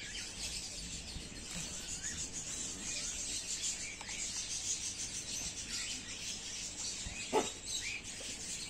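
Small birds chirping on and off over a steady high hiss of outdoor ambience, with one short sharp sound about seven seconds in.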